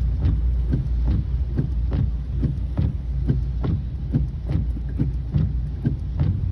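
Low rumble from inside a moving car, with a regular thump about twice a second.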